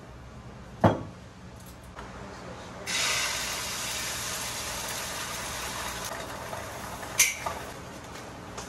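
A sharp knock, then about three seconds in an egg drops into hot oil in a wok and starts sizzling steadily, with another short clack of a utensil against the pan a little before the end.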